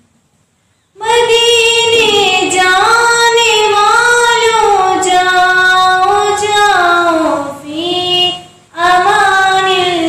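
A girl singing a naat, an Islamic devotional song in praise of the Prophet, solo and unaccompanied, with long held notes that slide between pitches. She comes in about a second in after a pause and breaks off briefly near the end before going on.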